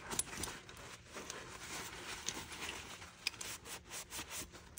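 A blue shop towel rubbing over a freshly oiled steel monkey wrench, wiping off excess oil, in quick irregular strokes with small scrapes and clicks.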